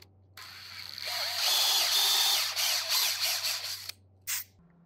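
Power drill spinning a hollow plug cutter into wood, boring a ring around a broken screw to cut it out. The cutting noise builds over the first second, stops just before four seconds in, and is followed by one brief burst.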